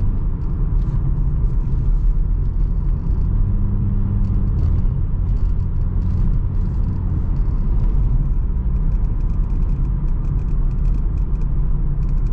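Infiniti G35's V6 engine and road noise while driving, heard from inside the cabin: a steady low drone whose pitch shifts slightly. The engine runs smoothly after fresh spark plugs, with no sign of the earlier misfire.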